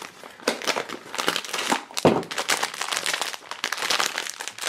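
A cardboard blind box pulled open, and the silver foil bag from inside it crinkling in the hands, in a run of irregular crackles, the sharpest about two seconds in.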